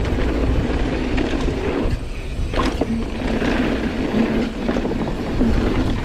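Downhill mountain bike descending a dry dirt trail, heard from a camera mounted on the rider: a steady rush of tyre and wind noise with the bike rattling and a few sharp knocks over bumps.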